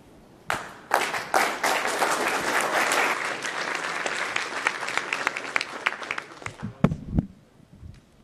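Audience applauding, many hands clapping, rising quickly and tapering off over about six seconds, followed by a few low thumps near the end.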